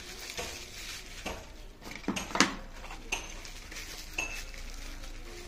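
Plastic bubble-wrap pouch crinkling and rustling as a phone is handled inside it, with several sharp clicks and knocks, the loudest about two and a half seconds in.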